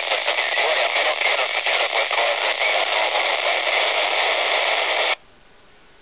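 Loud, steady FM receiver hiss from a Wouxun KG-UVD1P handheld tuned to the ISS 145.800 MHz downlink, the noise of a weak signal carrying no voice. About five seconds in it cuts out abruptly and comes back a little over a second later.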